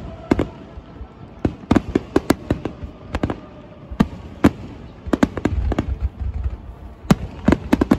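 Aerial firework shells bursting in rapid, irregular succession: many sharp bangs, often in quick clusters, with a low rumble between them.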